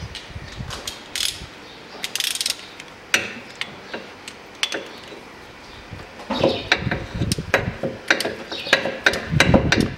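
Ratchet wrench with a 19 mm socket clicking as it is worked back and forth on a manual gearbox's side filler plug, which is stiff and set in sealant. Sparse clicks at first, then a busier run of rapid clicks and knocks from about six seconds in.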